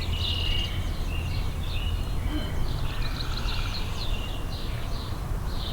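Several birds chirping and twittering, short high calls overlapping one another throughout, over a steady low background hum.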